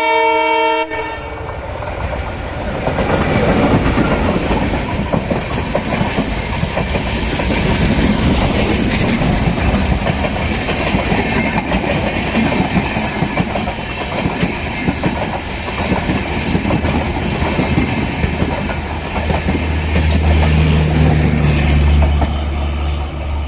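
A multi-tone train horn sounding, cut off about a second in, then a passing train's wheels rumbling and clattering over the rail joints. A low steady drone comes up near the end.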